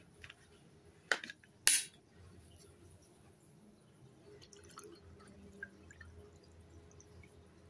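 Two sharp clicks about a second in, then water from a bottle pouring in a thin, faint stream into a glass tumbler with stones at the bottom.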